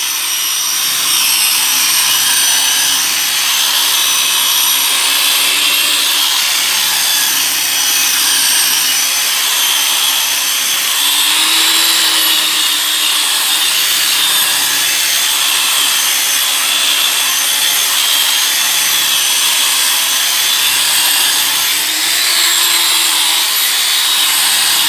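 Electric rotary car polisher running steadily with its foam pad pressed against the car's painted body panel, machine-polishing dull paint back to a gloss. A high motor whine over a rubbing hiss, the whine wavering slightly in pitch twice.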